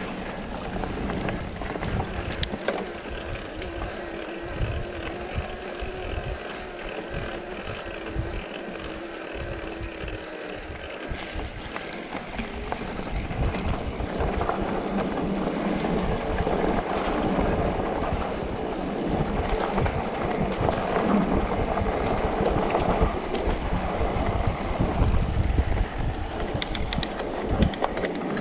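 Specialized Turbo Levo e-mountain bike ridden over a dirt forest trail: tyres rolling, the frame rattling and knocking over bumps, and a steady whine through the first twelve seconds or so. The ride gets louder and rougher from about halfway.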